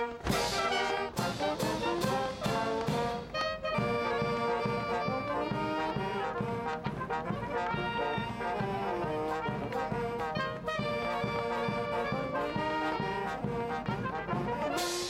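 Military brass band playing, with trumpets and trombones carrying the tune over a steady drum beat.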